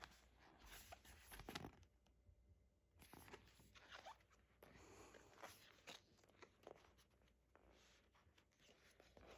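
Faint rustling and soft clicks of glossy photo-book pages being handled and turned, in irregular bursts.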